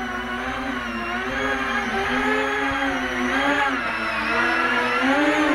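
E-flite Convergence VTOL hovering in tricopter mode, its three electric motors and propellers giving a steady buzzing whine whose pitch wavers up and down as it holds position in high wind.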